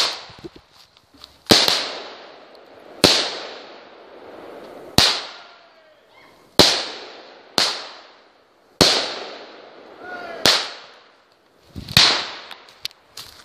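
A consumer firework cake firing its shots one after another: about nine sharp bangs, roughly one every one and a half seconds. Each bang is followed by a tail that fades over about a second.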